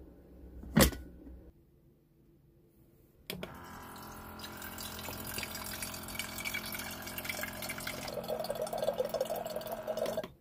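A sharp click just under a second in; then, a couple of seconds later, water starts running steadily and stops abruptly near the end.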